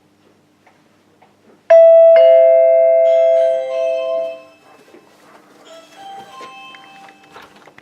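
Doorbell chime sounding a two-note ding-dong: a high note rings out suddenly, a lower note follows about half a second later, and both fade away over about two seconds. Fainter tones follow near the end.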